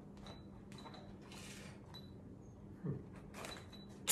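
Quiet handling of a small cardboard parts box: faint rustles and light taps as it is turned over in the hands, with a sharper, louder crackle of cardboard right at the end.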